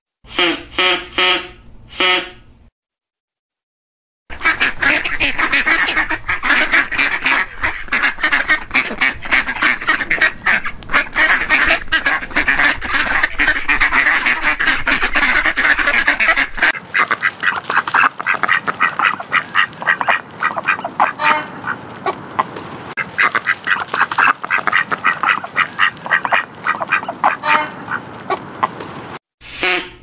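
A large flock of ducks quacking and calling over one another in a dense, continuous chorus. There is a brief gap a few seconds in and another near the end.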